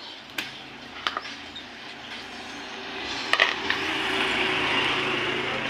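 Upholstery work noises: a few sharp knocks, then a steady hiss that builds from about three seconds in and cuts off suddenly at the end.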